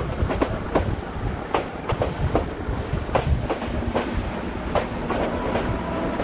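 Passenger train wheels clicking over rail joints over a steady low rumble, heard from aboard a coach as the train climbs the ghat. The clicks come unevenly, about two a second, and a faint steady whine comes in during the second half.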